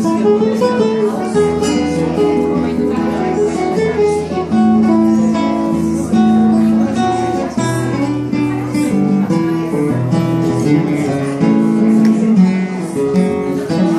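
Acoustic guitar music, plucked and strummed steadily with held notes over a low bass line.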